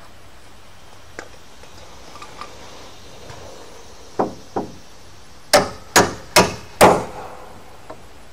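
Hammer blows on wooden roof framing, driving a nail: two light taps about four seconds in, then four hard strikes about half a second apart.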